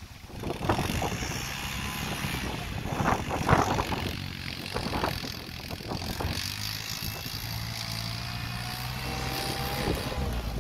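The Yanmar diesel engine of a Thwaites Mach 201 articulated dumper running steadily under load as the machine drives across rough ground. A faint whine rises slightly in pitch after the middle, and wind buffets the microphone in gusts.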